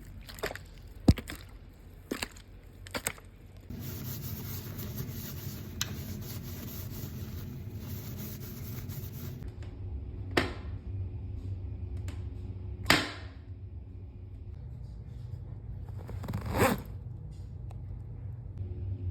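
A run of separate homemade foley effects: a handful of sharp clicks, then about six seconds of steady hissing noise, then three louder single knocks spaced a few seconds apart.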